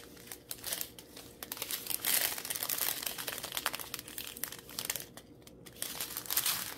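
Small clear plastic bags of square diamond-painting drills crinkling as they are handled and shuffled through by hand, with a brief lull about five seconds in.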